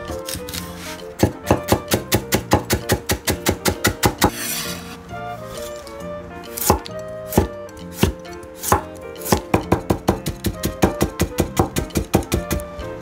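A wide-bladed kitchen knife chopping vegetables on an end-grain wooden cutting board, in quick runs of about four to five sharp knocks a second with a few single strokes between. Near the end it is slicing a carrot into thin pieces.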